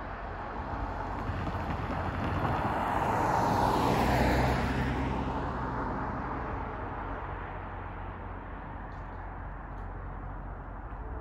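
A vehicle passing by, swelling to its loudest about four seconds in and fading away within a couple of seconds, over a steady low hum.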